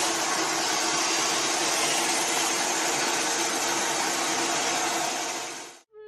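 Steady machine noise: a rushing whir with a steady hum and a high whine. It cuts off abruptly near the end.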